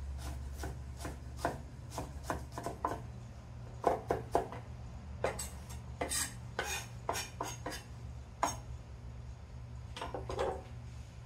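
Chef's knife chopping peppers on a wooden cutting board: quick, irregular knife strikes on the wood in short runs, over a steady low hum.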